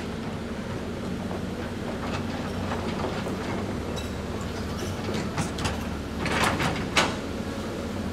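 CAT 320D hydraulic excavator's diesel engine running steadily under load while its bucket digs into a rocky slope, the teeth scraping and knocking on rock. A longer scrape comes about six seconds in, then a sharp knock, the loudest sound.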